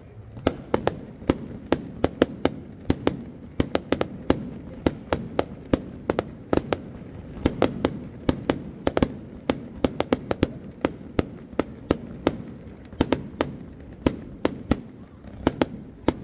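Fireworks display: an irregular, rapid run of sharp bangs and cracks, several a second, over a steady low background rumble.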